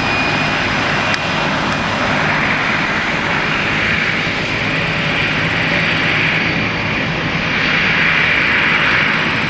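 Boeing 737-800's CFM56-7B turbofan engines on takeoff: a steady, loud jet rushing noise that swells slightly near the end.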